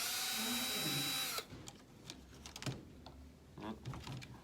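Small electric screwdriver spinning on the screws that hold the steering knuckle of an RC truck's axle. It gives a steady whine for about a second and a half that cuts off abruptly, followed by light clicks and taps of small tools and parts.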